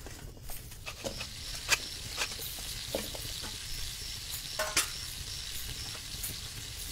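Food sizzling as it fries in a pan on a cooking stove, with a few sharp clicks of a utensil stirring against the pan.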